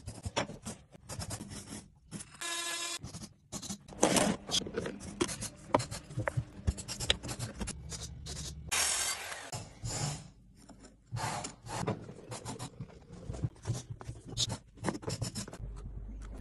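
Wooden parquet pieces handled and set in place: short knocks and taps of wood on wood with rubbing and scraping between them, and a brief pitched squeak about two and a half seconds in. A low hum starts near the end.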